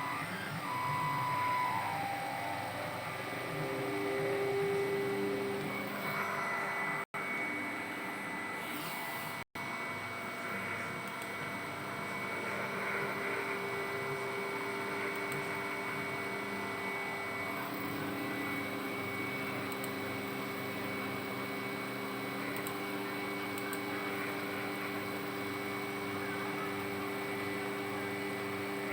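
CNC machine running a test, its stepper motors whining in steady tones that jump to new pitches as the axes change speed, over a constant motor hum. The sound cuts out briefly twice, a few seconds apart.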